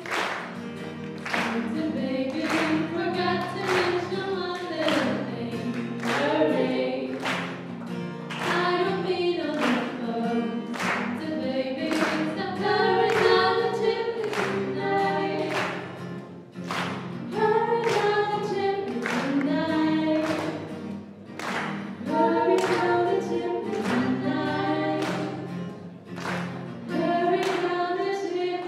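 Two female voices singing a song into microphones, accompanied by a strummed acoustic guitar whose strums keep a steady beat.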